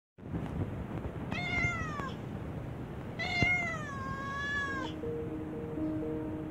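Stray tabby cat meowing twice at a person in a doorway: a short meow falling in pitch, then a longer drawn-out one. The meows are begging for food.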